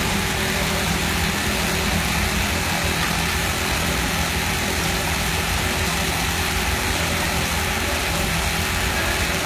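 Computerized pattern sewing machine running at speed, stitching a pattern through denim: a steady, dense mechanical whir over a low hum.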